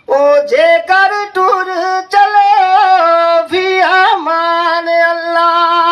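A woman singing a Punjabi song, her voice bending through ornamented turns, then holding one long note for the last second and a half.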